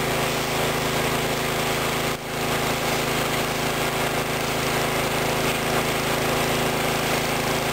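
Gas-engine pressure washer running steadily under load, its engine hum mixed with the hiss of the high-pressure spray, dipping briefly about two seconds in.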